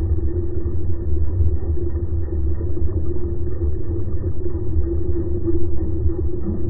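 Selva XSR 40 Dorado outboard motor idling in gear, recorded underwater beside its lower unit as the propeller turns slowly: a steady, muffled low rumble with a droning hum.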